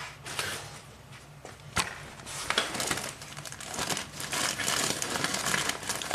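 Rustling and handling noise as parts and tools are moved about on a workbench, with a sharp knock just under two seconds in and a denser stretch of rustling through the second half.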